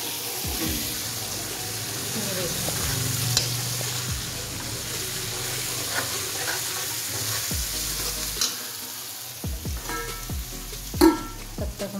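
Tadka sizzling in hot oil in a steel kadhai as a spoon stirs it, with a steady hiss and occasional clinks of the spoon against the pan. A louder metal clank comes near the end.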